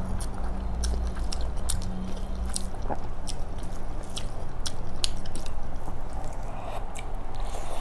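Close-miked chewing of chicken biryani, with many short wet mouth clicks and smacks, as fingers mix the rice on the plate. A low steady hum runs underneath.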